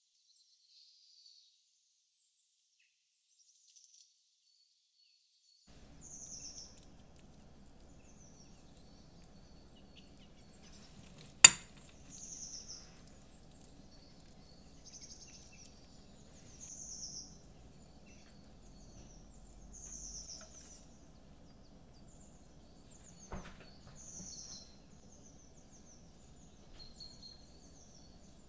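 Birds calling in a winter-morning nature recording: short high chirps every couple of seconds, with a faint low outdoor rumble that comes in about six seconds in. A single sharp click, the loudest sound, cuts in a little before the middle, and a weaker one comes a little past two-thirds of the way.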